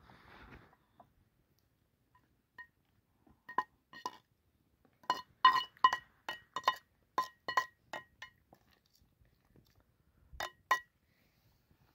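Metal knife blade tapping and scraping against a frying pan to knock cooked fish out of it: a quick run of sharp clinks with the pan ringing after each, then two more clinks near the end.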